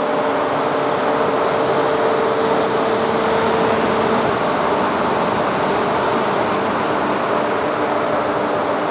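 Large axial fans of a mobile corn dryer running: a steady rush of moving air with a faint, even hum, one tone of which fades about four seconds in.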